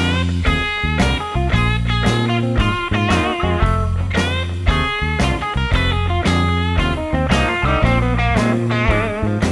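Background music with a steady beat and heavy bass, its lead notes bending and wavering in pitch.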